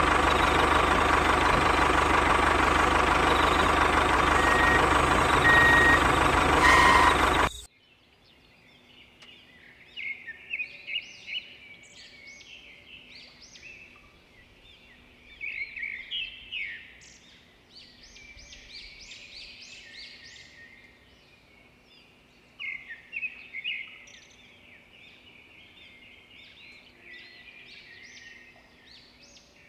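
A motor running loudly and steadily, cutting off suddenly about eight seconds in. After that, birds chirp in short bursts over a quiet background.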